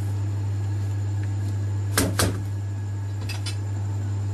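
Steady low hum, with two sharp knocks close together about two seconds in and a couple of fainter taps about a second later.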